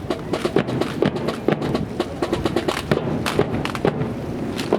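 A rifle drill team handling their rifles: a fast, irregular run of clacks and knocks as hands slap the rifles and stocks strike, with heavier thuds among them.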